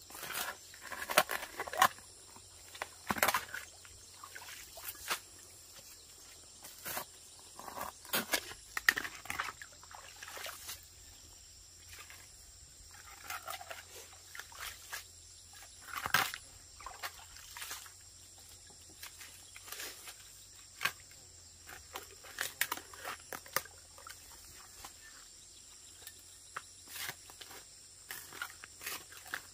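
Irregular knocks and scrapes of hand-digging in wet earth, with a steady faint high hiss behind.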